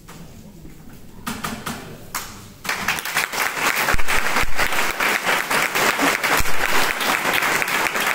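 Audience applauding: a few scattered claps about a second in, swelling into full, sustained applause from about three seconds in.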